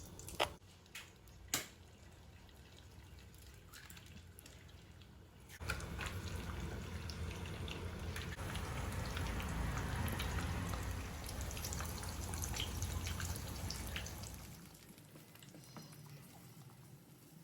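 Two sharp knocks, then liquid pouring steadily for about eight seconds before tailing off.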